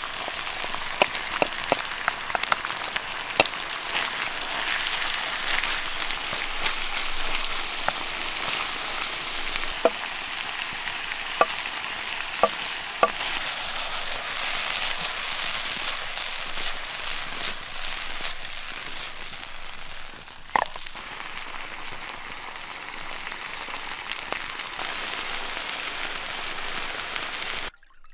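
Minced beef and chopped tomatoes sizzling in a frying pan over a wood fire: a steady hiss with scattered sharp pops. It cuts off suddenly shortly before the end.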